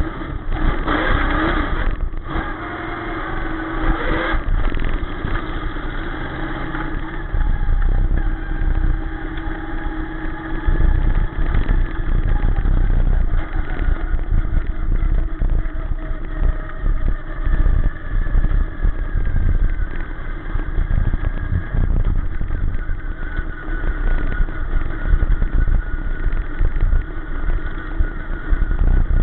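Sportsman dirt-track race car's V8 engine heard from inside the cockpit, loud and under heavy low rumble. Its pitch rises and falls with the throttle as the car laps the track.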